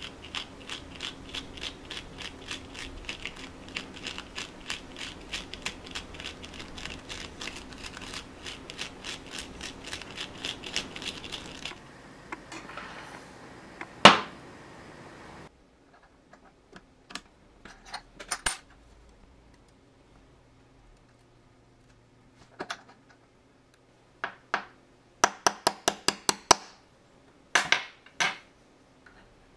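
A small stiff brush scrubbing rust off a tiny brass watch wheel held in tweezers, in quick even strokes for about twelve seconds. Then one sharp metallic knock, followed by scattered clicks and quick runs of small metal taps from a watchmaker's staking tool being set up and its punch pressed onto the wheel's centre to free the rusted-together central wheels.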